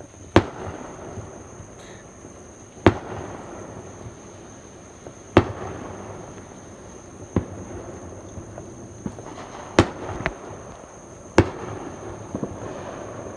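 Fireworks going off: about six sharp bangs a couple of seconds apart, each trailing off in a rumble, with a few smaller pops near the end.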